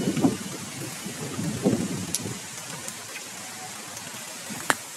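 Low, gusty rumbling of wind and handling noise on a handheld microphone carried outdoors, strongest in the first two seconds, over a steady hiss, with one sharp click near the end.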